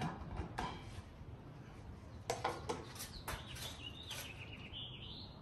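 A string of light clinks and knocks as bowls, foil and utensils are handled and packed up on a steel prep table. In the second half a bird chirps with a wavering high call for about a second and a half.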